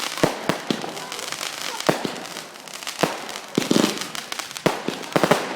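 Fireworks and firecrackers going off: a rapid, irregular string of sharp bangs and pops over a constant crackle, with a dense burst of pops a little before the four-second mark.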